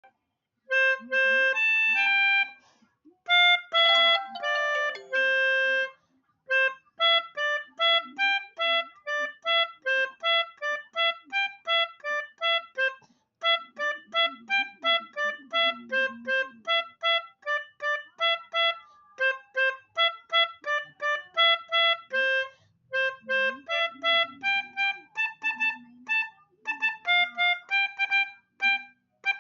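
A telolet basuri tune played in a reedy tone. It opens with a few held chords, then runs on as a quick melody of short, detached notes.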